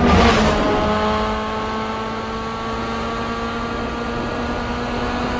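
A racing car's engine running hard under acceleration. After a short rush of noise at the start, it holds one steady note that climbs slowly in pitch as the revs build.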